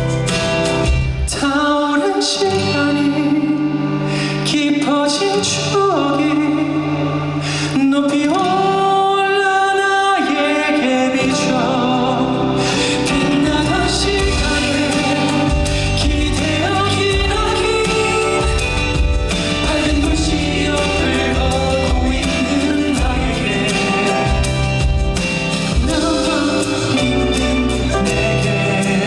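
Live concert music: a male singer singing over band accompaniment, holding some long notes.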